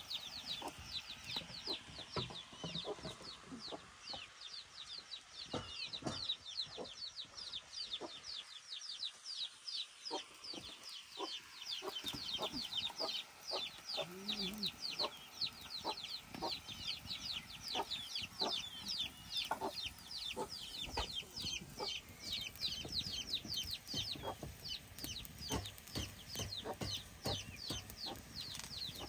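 Chickens peeping without pause: a dense stream of short, high, falling chirps, several a second, with scattered sharp clicks and knocks and a short low call about halfway.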